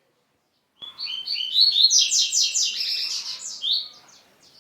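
Double-collared seedeater (coleiro) singing: a fast, loud phrase of short chirping notes starting about a second in, tailing off into a few scattered notes near the end.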